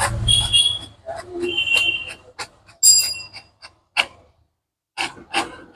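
HP Smart Tank 790 inkjet printer running a copy job: short high-pitched motor whines from the paper feed and print mechanism, with sharp mechanical clicks in between as the page is printed and fed out.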